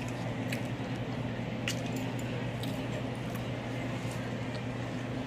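A steady low hum with a few light, scattered clicks and clinks.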